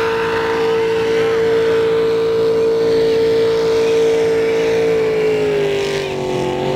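Racing boat's engine running flat out, a steady loud drone whose pitch falls slightly about five seconds in as the boat runs past across the bay.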